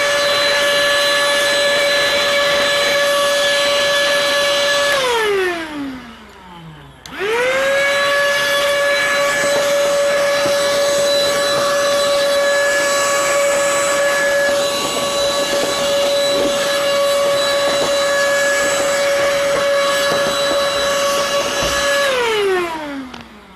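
Cordless handheld vacuum running with a steady whine, sucking caked dust out of a projector's vent grilles. Its motor winds down with a falling pitch about five seconds in, starts again a couple of seconds later, runs steadily, and winds down again near the end.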